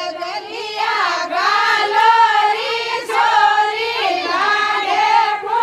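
A group of women singing a Marwari Fagan folk song together, several voices carrying one melody.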